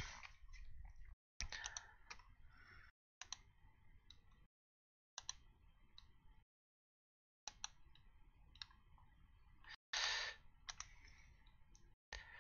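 Faint, scattered computer mouse clicks and a few keyboard keystrokes, with stretches of dead silence where the audio drops out and a short hiss about ten seconds in.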